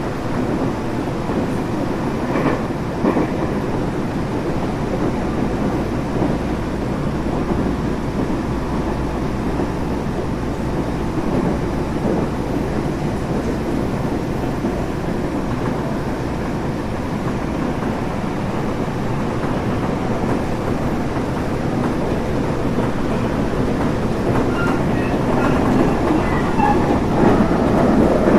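Tobu 30000 series electric train heard from inside a passenger car while running at speed: a steady rumble of wheels on the rails with occasional clacks over rail joints. Near the end the noise grows a little louder and faint high-pitched wheel squeals come in.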